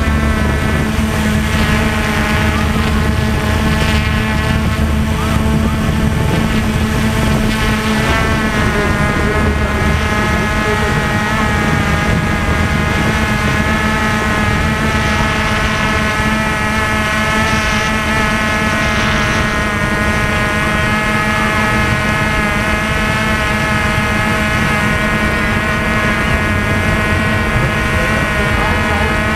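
WLtoys V303 quadcopter drone's motors and propellers whining loudly and steadily, heard close through its onboard camera. Several whining tones drift up and down a little as the rotors change speed.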